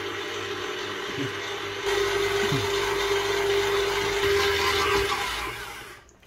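Kenwood kMix stand mixer running with its dough hook, kneading flour and salted water into dough: a steady motor hum that gets louder about two seconds in and fades out near the end.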